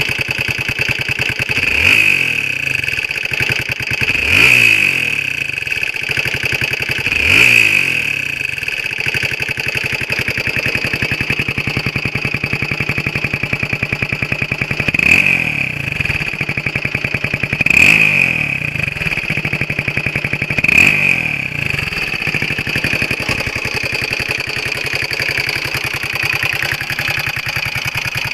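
Honda XL125R single-cylinder four-stroke engine idling, its throttle blipped six times in two groups of three, each rev rising and falling back to idle. A steady high-pitched whine rides over the engine and grows with each rev: the abnormal engine noise the owner is recording.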